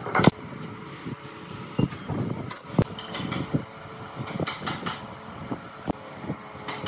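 Knocks and clatter of hand tools being handled and set down on a wooden workbench, the sharpest knock about a quarter second in, over a faint steady hum.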